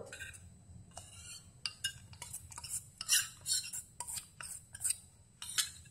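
Steel spoon scraping and clinking against a stainless steel bowl and pan as horse gram flour paste is scraped into boiling water and stirred: a string of short scrapes and clinks, about two or three a second.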